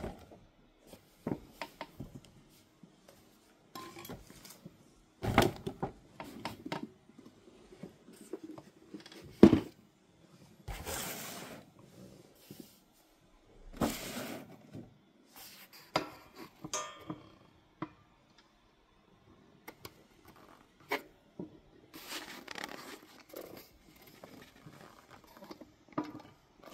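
A cardboard collectible box with a clear plastic window being handled and turned over: scattered taps and knocks with rustling, scraping stretches, the loudest a sharp knock about nine and a half seconds in.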